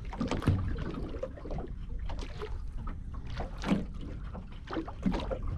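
Water slapping irregularly against a small boat's hull, over a steady low rumble.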